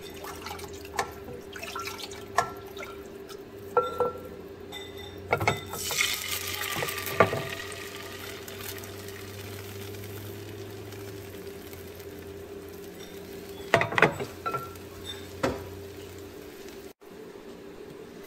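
Thin rice-flour batter poured into a hot oiled nonstick pan, a pouring wash lasting a couple of seconds, among scattered clicks and taps of utensils on the pan and bowl. A steady hum runs underneath.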